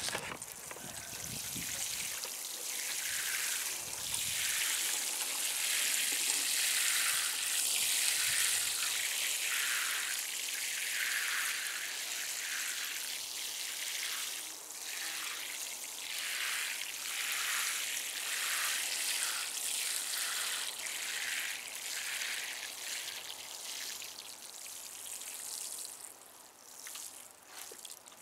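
Water showering from a plastic watering can's rose onto loose compost: a steady hiss of droplets that swells and eases as the spray moves along the row, thinning out near the end.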